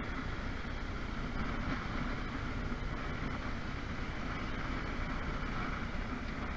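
Motorbike riding along at a steady speed: a steady rush of wind and road noise over the bike's running engine.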